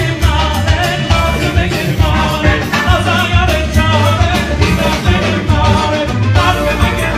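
Live band music over a PA: electronic keyboard and drums with a steady beat and heavy bass, and a man singing into a microphone.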